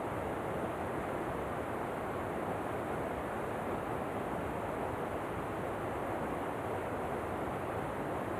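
A waterfall rushing steadily: an unbroken, even wash of falling water.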